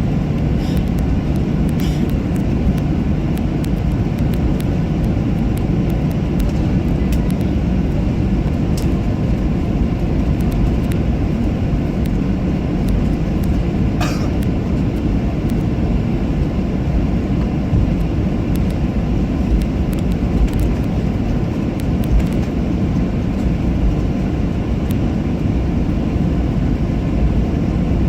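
Steady engine and airflow noise inside a jet airliner's passenger cabin, a low even rumble with a few faint clicks and rattles.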